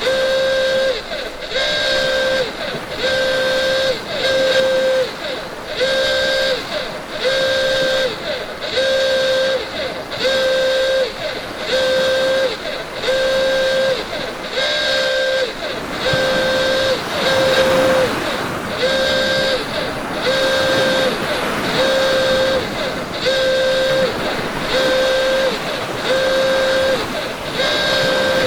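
Emergency alert alarm: a loud, buzzy horn-like tone repeating in short blasts about once a second, over a background of noise that swells briefly about two-thirds of the way through.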